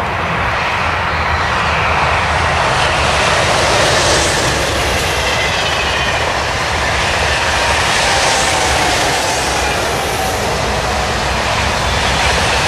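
Two coupled TGV Duplex double-deck high-speed trainsets passing at speed: a loud, steady rush of wheels on rail and air, with faint whining tones slowly falling in pitch as the train goes by.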